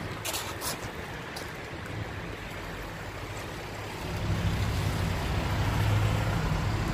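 An even outdoor rush, with a few clicks soon after the start. About four seconds in, the low steady hum of a vehicle engine running comes in and stays.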